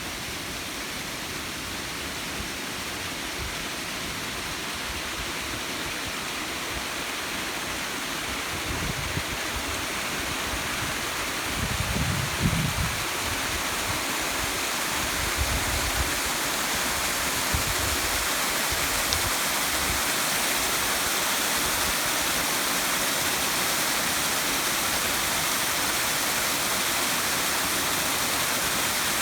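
Small garden waterfall splashing and rushing steadily, growing slightly louder over the clip. A few brief low rumbles come through about a third to halfway in.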